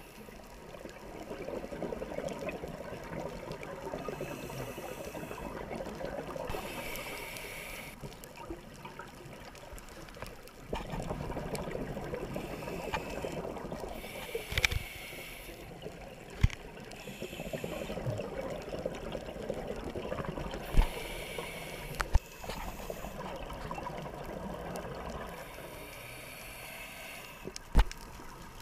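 Scuba diver breathing through a regulator underwater: short hissing inhalations every few seconds alternate with longer bubbling exhalations. A handful of sharp clicks stand out above the breathing.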